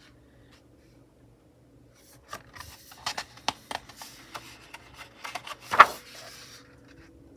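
Album photobook pages rustling and being handled, starting about two seconds in, with a sharp click a little before the end as the CD in its holder is handled.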